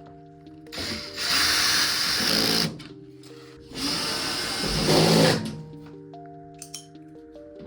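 Cordless drill/driver running twice in short runs of about a second and a half each, driving screws during reassembly of the dryer, over background music.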